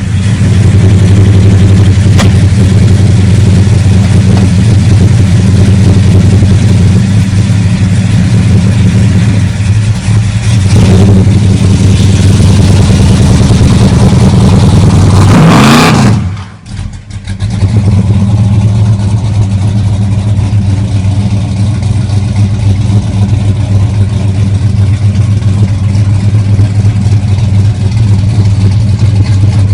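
Supercharged V8 engine of a 1969 Dodge Charger idling steadily, with one rising rev about halfway through; the sound briefly drops away just after the rev, then the engine idles on.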